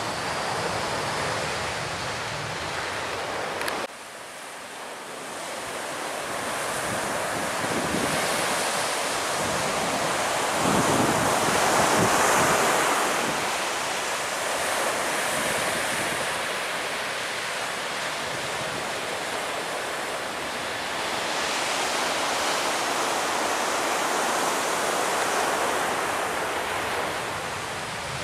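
Wind buffeting the microphone over breaking surf. It drops suddenly about four seconds in, then a broad rush from a Boeing 737 jet on landing approach builds to its loudest about twelve seconds in and fades again.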